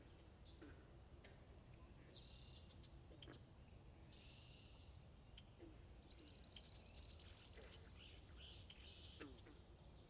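Faint natural ambience of birds calling: scattered high chirps, a rapid trill about two thirds of the way through, and short low calls, over a steady low rumble.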